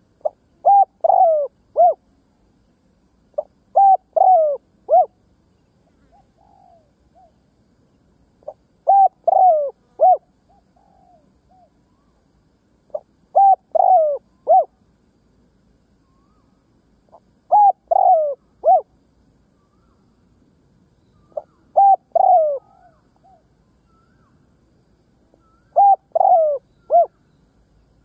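A spotted dove, a caged decoy, sings its cooing song: seven phrases about four seconds apart, each a short note then three or four quick, slightly falling coos. A much fainter coo follows some of the phrases.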